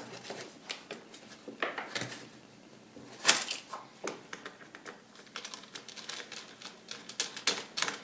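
Screwdriver clicking and tapping against the plastic bottom cover of a Lenovo ThinkPad P50 laptop: a run of small irregular clicks, with a louder click about three seconds in.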